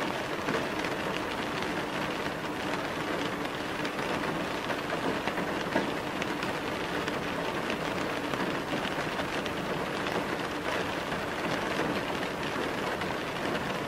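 Steady rain sound: an even hiss with scattered taps of drops and a faint steady hum underneath.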